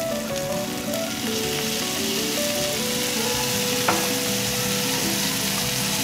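Cicada nymphs stir-frying in hot oil over high heat in a nonstick pan: a steady, loud sizzle, with a single sharp click about four seconds in.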